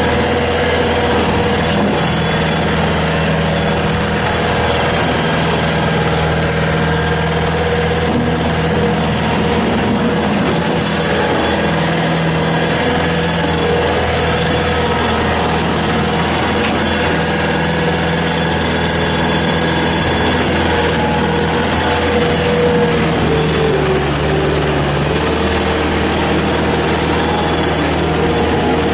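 A 2007 Bobcat S250 skid steer's Kubota turbo diesel engine running steadily, with a steady tone that dips briefly about 24 seconds in.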